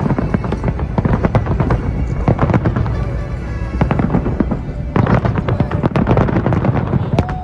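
Fireworks display: a dense, continuous crackle of many rapid bangs and pops, with a fresh surge of bursts about five seconds in.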